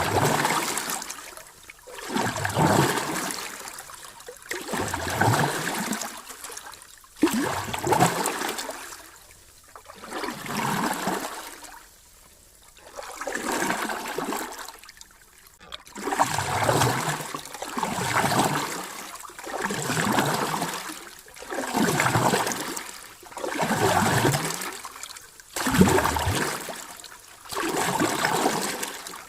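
Sea waves washing in, a surge of water noise swelling and fading about every two seconds, with a softer stretch about halfway through.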